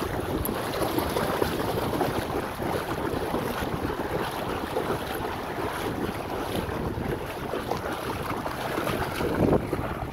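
Dogs and a wading person splashing through shallow seawater, a steady churning of water, with wind noise on the microphone.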